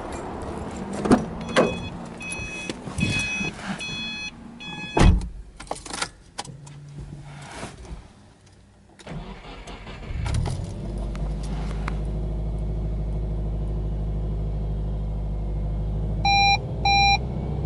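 Subaru Impreza 1.5i-S's 1.5-litre flat-four boxer engine starting about ten seconds in and settling into a steady fast idle near 1,600 rpm. Before it come clunks from the car's door and a run of repeated electronic chimes; two short beeps sound near the end.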